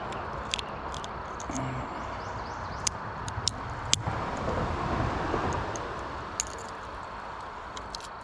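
Scattered small metallic clicks and clinks of a homemade spinner lure and hook being handled while unhooking a caught panfish, over a steady rushing background noise that fades in the second half.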